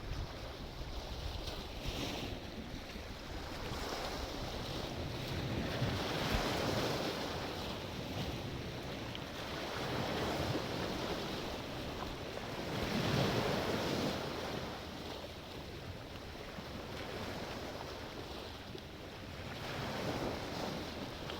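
Sea waves breaking and washing ashore, the surf swelling and ebbing every few seconds, with some wind on the microphone.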